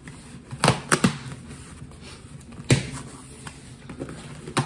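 A handful of short, sharp knocks and taps at uneven intervals, three close together about a second in and two more later.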